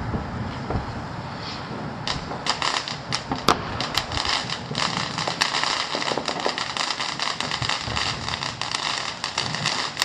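Fireworks crackling in a dense, rapid stream of pops that starts about two seconds in, with a few louder sharp cracks among them.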